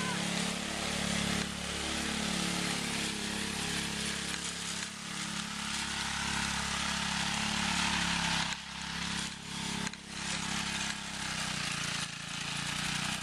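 1951 David Bradley walk-behind tractor's single-cylinder gasoline engine running steadily as the tractor is driven across grass. Its note drops briefly twice about two-thirds of the way through.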